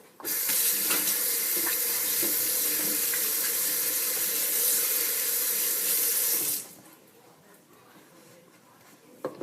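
Water tap running into a sink while hands are washed clean of slime. The water comes on just after the start and is shut off suddenly about six and a half seconds in.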